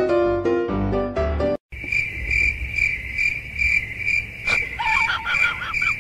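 A cricket chirping steadily in short high pulses, about three a second, starting right after piano-like music cuts off about a second and a half in; a brief wavering whine joins near the end.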